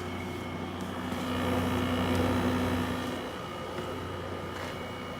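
Frigidaire 5000 BTU window air conditioner running on high cool: compressor and fan motor making a steady hum with a thin high whine over it, the fan motor's bearings going bad. The hum swells louder for a couple of seconds about a second in, then settles back.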